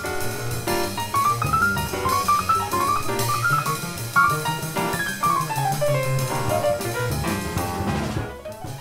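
A jazz trio playing live: grand piano in fast rising and falling runs over upright double bass and drum kit cymbals. The music dies down near the end.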